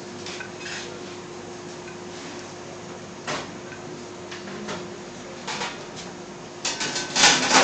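Light taps of pastry tartlet shells being set down on a ceramic plate over a steady hum, then a louder burst of clattering and scraping near the end.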